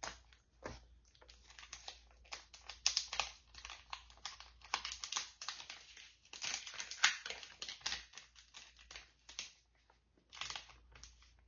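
Crinkling of sheet-mask packaging being handled, in irregular bursts of sharp crackles with a short lull near the end.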